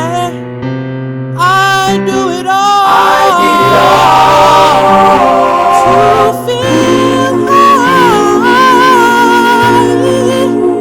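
Music: a slow song with sustained chords and bass notes under a wordless sung vocal line with vibrato.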